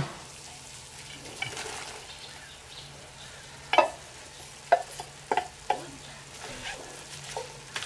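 Meat and bacon frying in clarified butter in a cast-iron Dutch oven, a steady sizzle as coarsely cut onions go in. About halfway through, a wooden spatula knocks against the metal bowl about five times, scraping the onions out.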